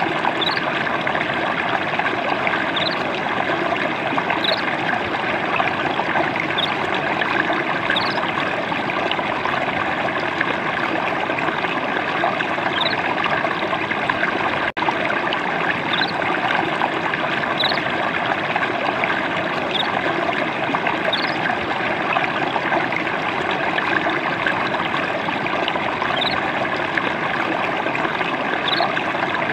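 A stream of water trickling steadily and gently. Short high notes pop up every second or two, and there is a split-second gap about halfway through.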